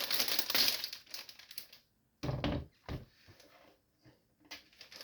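Keyboard packaging crinkling and rustling as it is handled, then a dull thump a little after two seconds in and a smaller one near three seconds, with a few faint knocks after.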